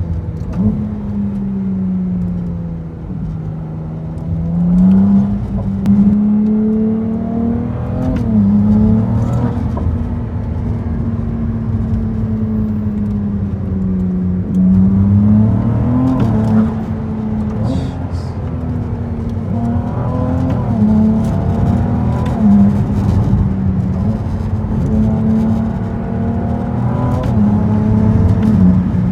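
Ferrari 296 GTB's twin-turbo hybrid V6 running hard, heard from inside the cabin. Its revs climb and drop back several times as the car accelerates.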